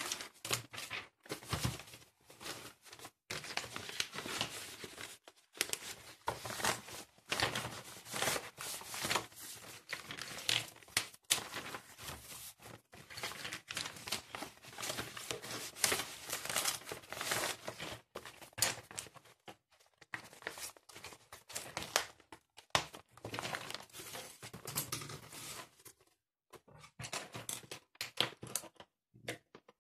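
Close, irregular rustling, crinkling and scraping of things being handled during tidying, in quick bursts with brief pauses.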